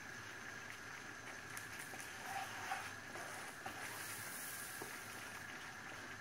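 Flour roasting in melted margarine and oil in a nonstick frying pan: a faint, steady sizzle, with light scrapes and taps of a wooden spatula stirring it. This is the slow toasting stage of flour halva over low heat.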